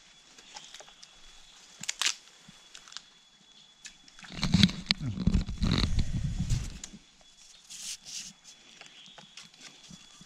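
Rustling, snapping and thumps of someone moving through brush and sticks beside a stream, with handling knocks; loudest for a couple of seconds in the middle, after a single sharp click. A faint steady high whine runs underneath.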